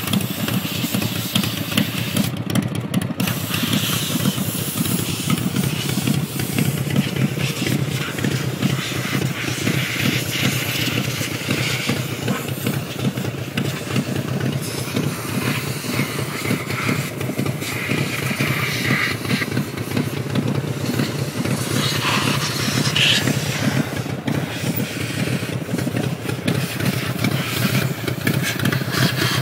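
S&S 88 cubic-inch V-twin engine of a custom rigid-frame chopper running at a steady speed, a continuous rapid pulsing beat.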